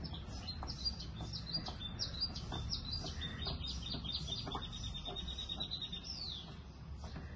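A small bird chirping: a quick string of short high chirps that runs into a fast, even trill and ends on a falling note near the end.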